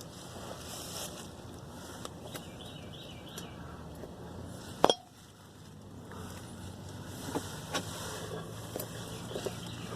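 Light metallic clicks and clinks of handling under a vehicle, with one sharp click about five seconds in and a few fainter ones near the end, over a low steady hum.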